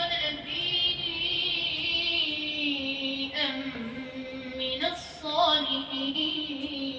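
Quran recitation: a single voice chanting in long, drawn-out melodic phrases, held on each pitch and sliding slowly between notes, with short breaths about three and five seconds in.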